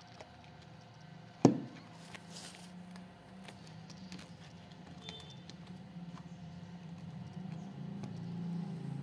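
A single sharp knock about a second and a half in, over a low steady rumble that grows louder toward the end.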